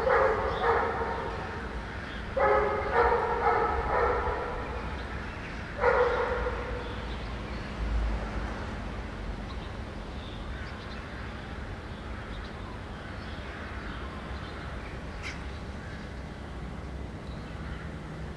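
A dog barking in three quick runs of barks over the first six seconds or so. After that there is only a steady low road rumble from the moving vehicle.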